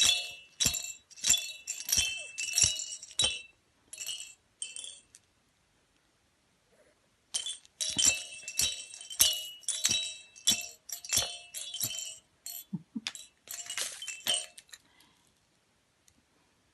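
Repeated clinking of hard glassy objects striking together, about two ringing clinks a second in two runs with a short pause between, dying away near the end.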